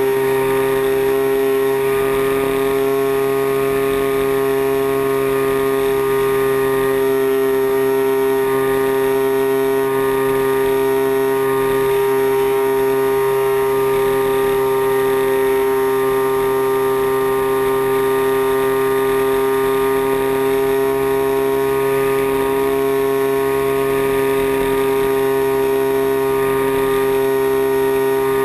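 40cc CRRC two-stroke gasoline engine of a giant-scale RC airplane running at a steady throttle in flight, heard from a camera mounted right beside it. Its pitch holds nearly constant throughout.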